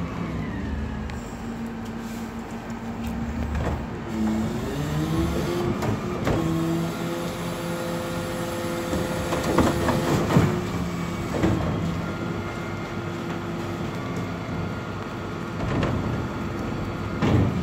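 Rear-loading bin lorry's engine running, its revs rising about four seconds in and holding as the hydraulic bin lift raises a large four-wheeled wheelie bin. There are several loud knocks in the middle as the bin is tipped into the hopper, then the revs drop back, and another knock comes near the end.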